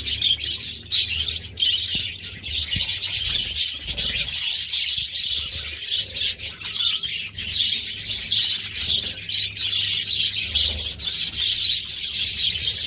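Budgerigars chattering and warbling without a break, a dense run of quick, high chirps.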